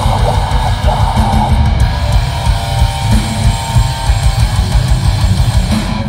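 Metalcore band playing loud live: heavy distorted electric guitars over a fast-driving drum kit.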